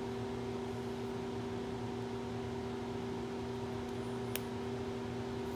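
Steady machine hum with a few fixed tones under a low hiss. One light click comes about four seconds in, as the injection pump's small metal parts are handled.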